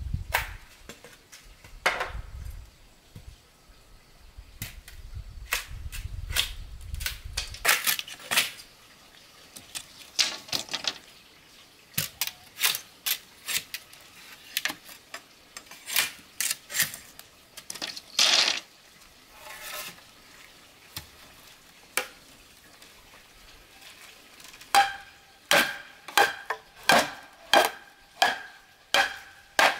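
Clatter of kitchenware and utensils being handled: scattered knocks and clicks, then, after about 25 seconds, regular metallic clinks about two a second with a ringing tone, as of a utensil striking a pot or bowl.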